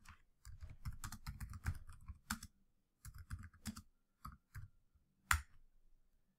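Typing on a computer keyboard: a quick run of keystrokes, a short pause, a second run, then a few single key presses ending in one harder keystroke about five seconds in, the Enter key that runs the command.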